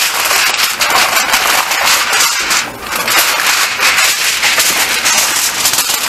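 Aluminium foil crinkling and crackling as it is stretched, folded and pressed down around the rim of a baking dish.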